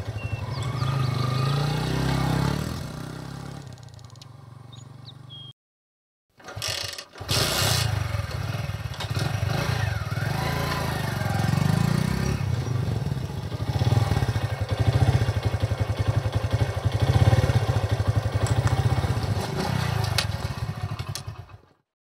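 Motorcycle engine revving, then running more quietly before it cuts out about five seconds in. After a short gap and a brief burst it starts again, runs with repeated revs, and is switched off just before the end.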